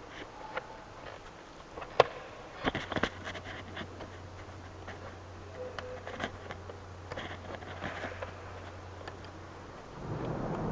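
Scattered clicks and knocks of parts being handled during work on a car's fuel-level sender, with a sharp click about two seconds in and a quick cluster of knocks a second later. A faint steady low hum starts at about the same time and stops near the end.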